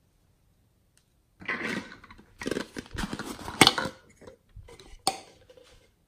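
Small plastic containers and lids handled close up: irregular rustling and scraping with sharp clicks. The loudest click comes about three and a half seconds in, and another about five seconds in.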